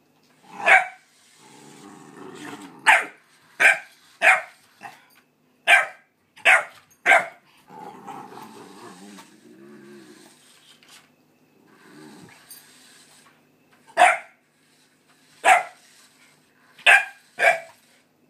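A puppy barking at an unfamiliar light-up toy: about a dozen sharp single barks at uneven intervals, with low growling between them and a few seconds of growling without barks in the middle.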